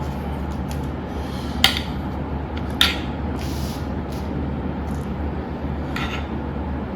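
Tableware clinking: three short, sharp clinks of plates or cutlery spread over a few seconds, over a steady low room hum.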